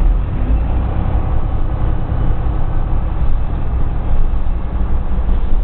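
Van Hool A120 city bus heard from inside the passenger cabin: engine and drivetrain running with a steady low rumble and hum. At the time of the recording the bus's gearbox had an extra noise.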